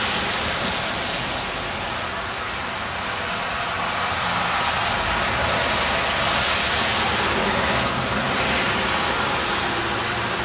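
Tyre hiss of cars on a rain-wet road, swelling and fading a couple of times as vehicles go by.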